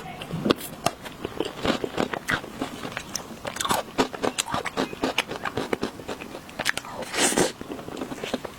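Close-miked crunchy biting and chewing of chocolate: many sharp crackles and clicks, with a longer, louder crunch about seven seconds in.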